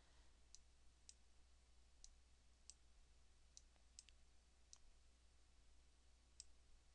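Near silence, with a low steady hum and about eight faint computer-mouse clicks at irregular intervals as vertices are selected and dragged.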